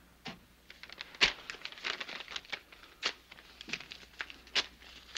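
A paper IOU note being handled, with irregular crinkling and rustling in sharp crackles of uneven loudness.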